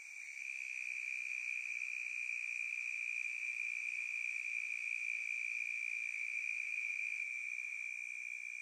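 Insects trilling in one continuous, steady high-pitched drone that swells slightly about half a second in.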